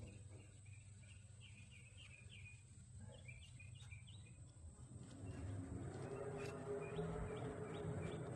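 A small bird chirping in quick runs of short high notes. About five seconds in, a louder, low, steady mechanical hum comes up and keeps going.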